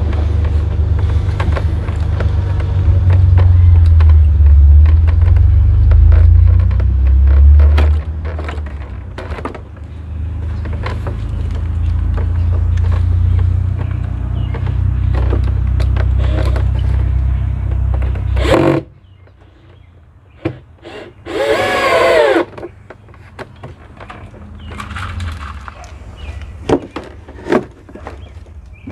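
Cordless drill/driver running briefly about two-thirds in, its whine rising and then falling as it drives a screw through the suitcase shell into a wooden divider. Before that there is a steady low rumble with scattered knocks and handling clatter, which cuts off suddenly. A few sharp clicks come near the end.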